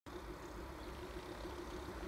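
WDG-3A diesel locomotive's ALCO 251 V16 engine running as the locomotive approaches: a steady low rumble with a constant hum.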